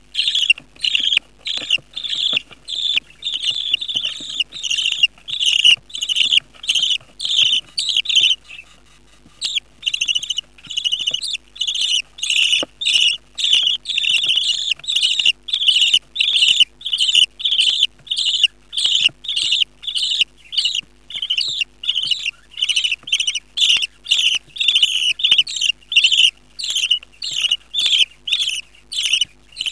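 Budgerigar chicks in the nest box begging to be fed: a fast, steady run of short raspy cheeps, about two to three a second, with one brief break about eight seconds in.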